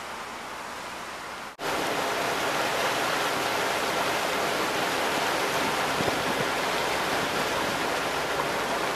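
Steady rushing noise aboard a ship under way: water past the hull and wind, with a faint steady hum underneath. It drops out briefly about a second and a half in and comes back louder.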